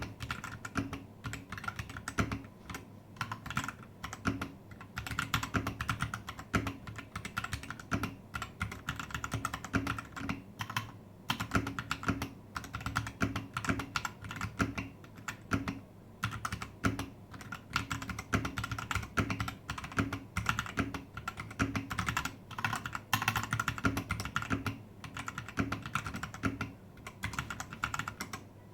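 Typing on a Royal Kludge RK71 mechanical keyboard with its stock linear red switches: quick, irregular keystrokes with a few short pauses.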